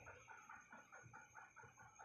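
Faint animal calls: a quick run of short repeated notes, about six a second, over a steady high whine.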